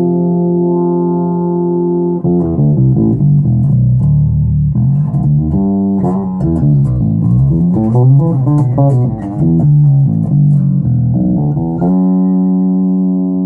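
Zoot Wal-a-Like electric bass guitar played through a Gallien-Krueger bass amp into a 1x12 cabinet. It opens on a held note, moves into a busy run of quick notes with some slides, and settles on another held note near the end.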